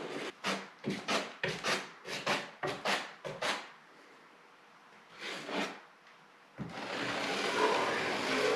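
Putty knife scraping joint compound along a drywall corner bead: a quick run of short strokes, two more a moment later, then one long drawn-out scrape near the end.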